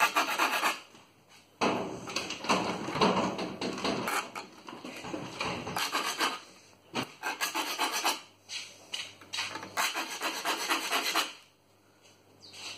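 A small saw file rasping across the steel teeth of a Disston backsaw held in a clamp. It goes in several runs of rapid back-and-forth strokes with short pauses between, and stops about a second before the end. The file is touching up individual teeth that are still dull.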